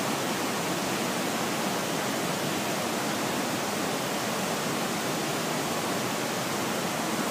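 Mekong River whitewater at Khone Phapheng Falls rushing down a rocky channel: a steady, unbroken rush of falling water.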